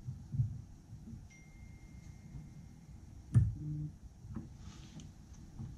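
Small handling clicks and knocks on an edge-sharpness tester as its test media is set up by hand, with one sharp knock about three and a half seconds in.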